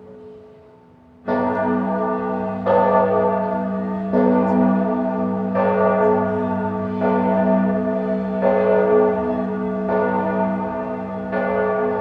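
Church bell tolling in slow, even strokes about every one and a half seconds, each stroke ringing on into the next over a steady low hum. The strokes begin abruptly about a second in, after a faint fading ring.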